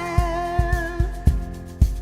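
Band music from a worship song: a steady drum beat with a long held, wavering note that ends about a second in.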